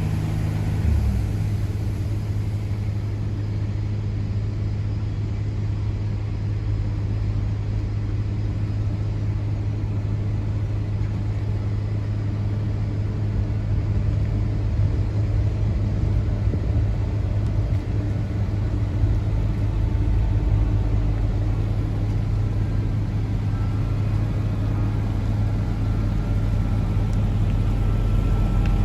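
A small forklift's engine running steadily with a low, even hum and rumble as it works.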